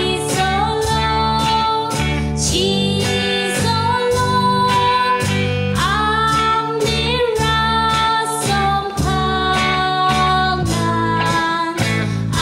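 Live band playing a song: a woman singing the melody over electric guitar and a Dixon drum kit keeping a steady beat.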